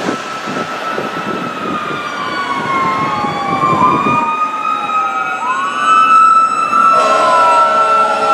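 Fire engine sirens wailing, several pitches sliding up and down past each other, among them the truck's Q mechanical siren. About seven seconds in, the fire engine's air horn comes in as a loud, steady chord of several tones.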